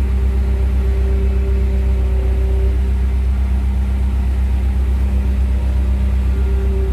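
Steady, loud, low engine drone with a constant hum and no change in pitch, from machinery running on the ramp around a parked ATR 72-600 turboprop.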